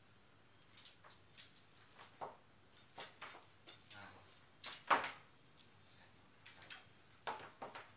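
Handling noise from a Hitachi CM4SB2 handheld cutter being turned over in the hands: scattered light knocks and clicks of its plastic and metal body, with one louder knock about five seconds in.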